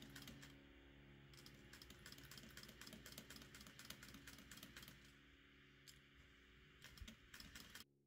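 Faint sewing machine stitching in short runs: rapid needle clicks over a low motor hum, stopping for a moment a couple of times.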